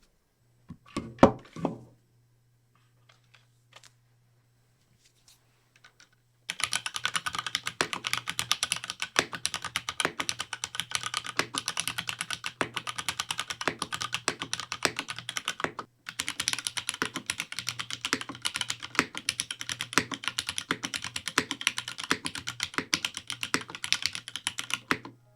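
Typing on a Glare TKL mechanical keyboard with lightly lubed Cherry MX Black switches and GMK keycaps. A few scattered clicks and a pause come first, then about six seconds in a fast, continuous run of keystrokes starts, with a brief break partway through.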